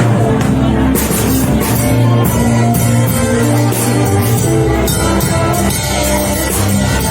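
Live worship band playing, with a steady bass line, held keyboard or guitar chords and drums.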